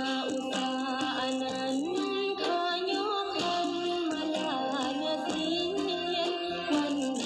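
Music with a woman singing long, slowly gliding held notes over a steady accompaniment.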